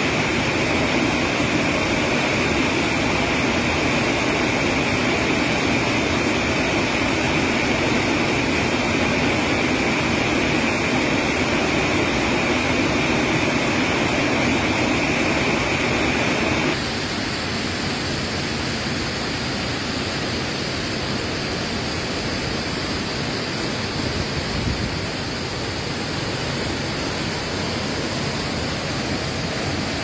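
Waterfall pouring into a plunge pool: a loud, steady rush of water. About 17 seconds in it cuts to a quieter, steady rush of running water.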